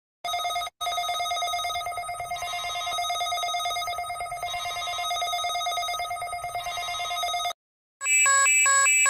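Steady electronic alarm tone with several overtones, from an emergency-alert-style alarm video played back on a tablet. It breaks off briefly near the start and stops about seven and a half seconds in. After a short silence, a different alarm of rapidly alternating beeps begins near the end.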